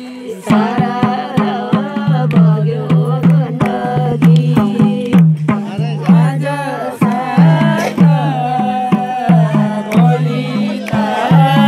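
Nepali dohori folk singing: a voice sings a wavering melody over a hand drum keeping a steady beat of alternating low and high strokes.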